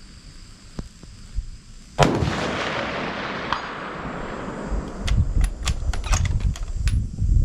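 A single rifle shot about two seconds in, its echo trailing off over a couple of seconds, followed by a quick series of sharp clicks and low rumbling.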